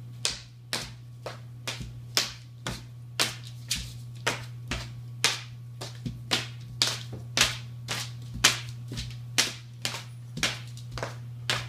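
Crayon strokes scraping across a large paper sheet, one short scratchy stroke about every half second in a steady rhythm, over a faint steady low hum.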